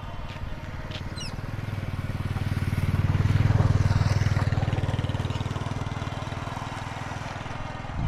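A motor vehicle's engine passes by, growing louder to about three and a half seconds in and then fading away.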